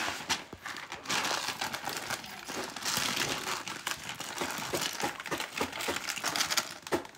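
A thin clear plastic bag crinkling and rustling as uncooked rice is poured into it from a bowl and the filled bag is handled and shaken, with many small clicks from the grains.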